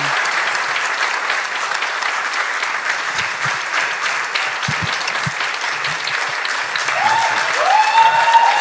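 Large theatre audience applauding steadily. Near the end, high tones that rise and then hold join the clapping.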